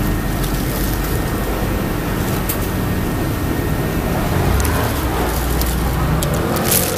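Steady low rumble of passing road traffic, with a plastic bag crinkling near the end.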